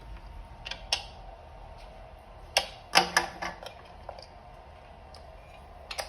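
Sharp clicks and knocks from handling an e-bike battery case and its power connector as the connector is fitted, with single clicks early on, a quick cluster of several louder knocks about three seconds in, and one more near the end.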